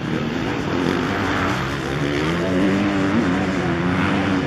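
Motocross motorcycle engine revving, its pitch rising and falling as the rider works the throttle.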